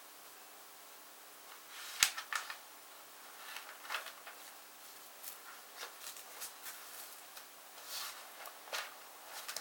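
An irregular run of sharp clicks and short scraping rustles, like close handling noise, starting about two seconds in; the first click is the loudest.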